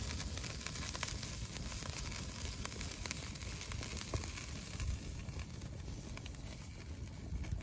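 Wood fire burning in the firebox of an antique cook stove, a steady hiss with scattered crackles and pops.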